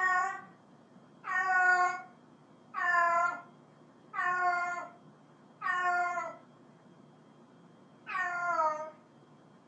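Domestic cat meowing over and over: about six meows, each under a second long and falling in pitch at the end. They come roughly every second and a half, with a longer pause before the last one.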